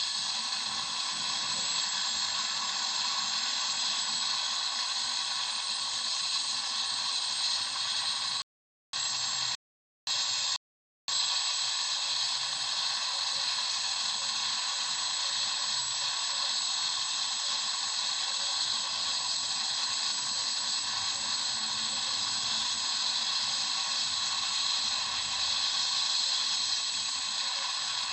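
Helicopter sound effect: a steady high hiss with faint whining tones over it. It cuts out to silence three times in quick succession, each briefly.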